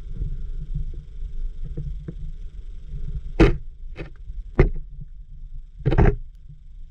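Muffled low rumble of water heard through an underwater camera, with four sharp knocks in the second half, the last one a little longer.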